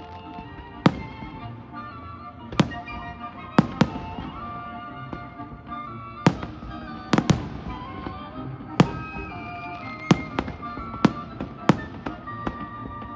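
Fireworks display: about a dozen sharp bangs of aerial shells bursting at irregular intervals, over music playing throughout.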